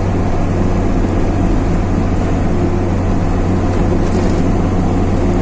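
Empty heavy truck's engine running at a steady pace along with tyre and road noise, heard from inside the cab as a constant low hum.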